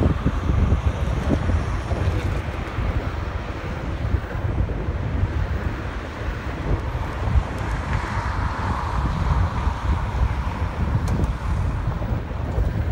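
Wind buffeting the microphone of a camera on a moving electric bike: a loud, uneven low rumble, with a fainter hiss behind it that swells briefly about eight seconds in.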